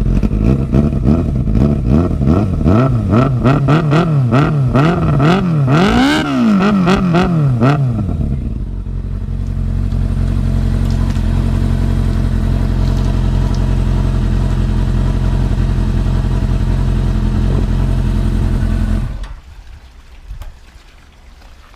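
Suzuki RF600R's inline-four engine, off choke, running loud through a short stubby exhaust can with its sound packing taken out. It is blipped repeatedly for about eight seconds, revs rising and falling, with the highest rev about six seconds in. Then it settles into a steady idle and cuts off a few seconds before the end.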